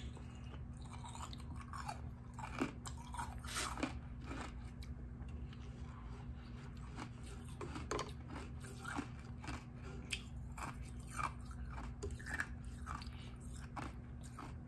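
Close-up chewing and crunching of frozen popsicle ice: irregular crackles and snaps of ice breaking between the teeth, over a faint steady low hum.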